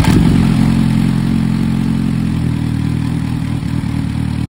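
Motorcycle engine running steadily; the sound starts and cuts off abruptly.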